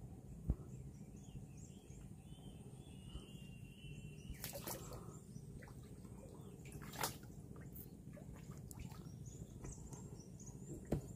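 Quiet waterside ambience: faint bird and insect chirps over a low steady rumble. A few short, sharp water sounds (drips and small splashes) come about half a second in, around four and a half seconds, around seven seconds and near the end.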